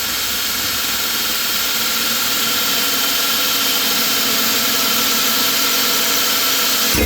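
Electric drill running steadily under load, boring an angled hole into a metal pottery-wheel leg. It cuts off suddenly at the very end as the drill bit snaps.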